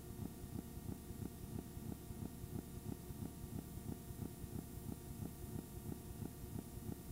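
Steady low hum with faint regular ticking, about five ticks a second, and no programme sound.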